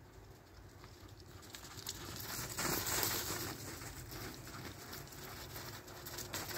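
A dog's paws crunching through snow at a run, a quick patter of crunches that grows louder from about a second and a half in as the dog comes closer.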